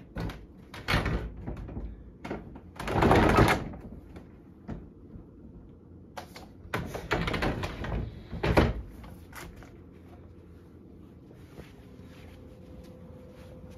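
Knocks, rattles and rustling of household things being handled, with a longer rush of noise about three seconds in and another cluster of knocks a few seconds later, then it quietens down.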